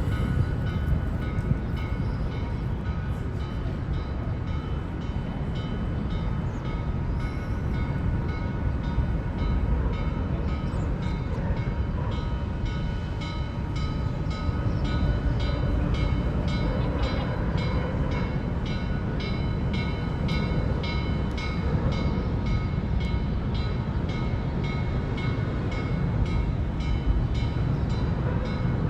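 Steam excursion train behind locomotive 1309 running along the track: a steady rumble with a regular beat of about two strokes a second that sets in about a third of the way through.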